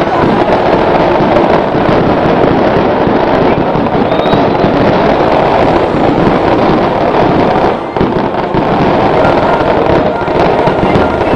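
A long string of firecrackers going off in a loud, continuous crackle, with a brief lull about eight seconds in.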